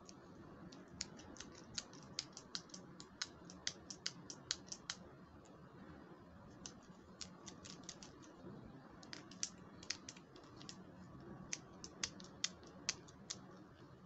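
Pink plastic toy curling iron clicking as it is handled in the fingers: four quick runs of light, sharp plastic clicks, several a second.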